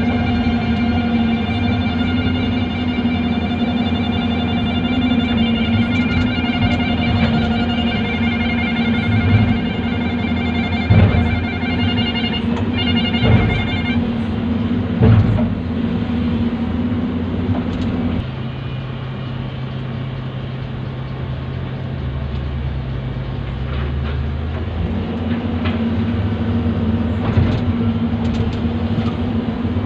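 Hyundai excavator's diesel engine running steadily under working load, with a high whine over it and a few sharp knocks. About 18 seconds in the engine drops to a lower, quieter note, then picks up again near 25 seconds.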